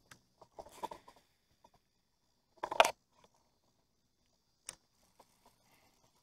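Fishing rod and reel being cast: light metallic clicks and rattles, then a short loud noise about three seconds in and a single sharp click near the end.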